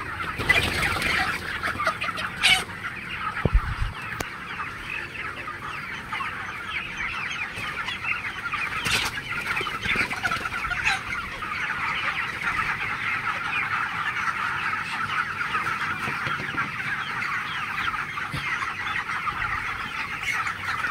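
A large flock of 27-day-old broiler chickens, many birds calling over one another in a dense, continuous din. A few short knocks in the first few seconds.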